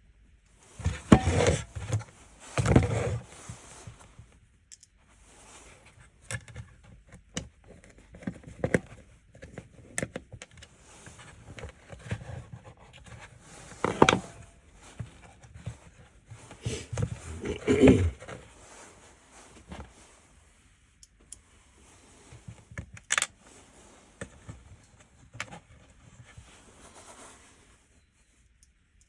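Small plastic and metal parts of a car light control panel being handled and taken apart: irregular clicks, rattles and scrapes, with louder bursts of clatter about a second in, around the middle and a few seconds later.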